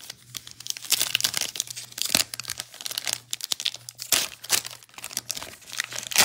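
Foil trading-card pack wrappers crinkling and tearing as they are opened and crumpled by hand, in a dense run of irregular crackles.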